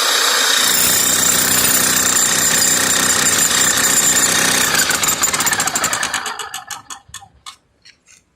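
Demolition hammer chipping concrete, a fast, loud, steady hammering. About five seconds in its blows slow and spread apart, then die away as the tool winds down and stops.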